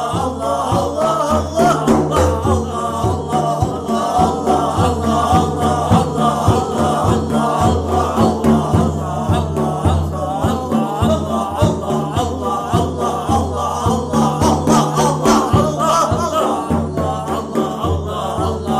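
Islamic dhikr chant: a group of voices repeating the name of God, 'Allah', in a steady repeating rhythm, set to music.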